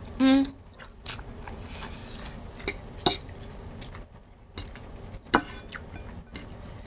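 A person eating spaghetti: a brief hum about a quarter second in, then chewing with scattered clicks, the sharpest a little after five seconds.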